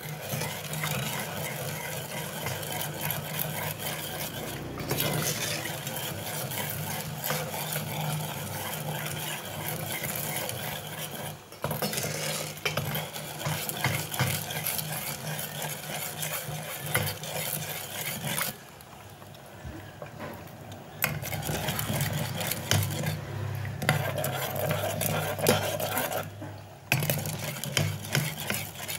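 A metal ladle stirring and scraping around a non-stick pot of liquid, with rapid small clinks and a few short pauses, and a quieter lull a little past the middle. A steady low hum runs underneath.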